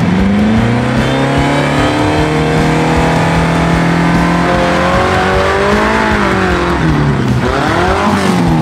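Off-road 4x4's engine revving under load as it drives up a steep bank: the pitch rises at the start, holds steady for a few seconds, swells briefly, then climbs sharply near the end and falls away.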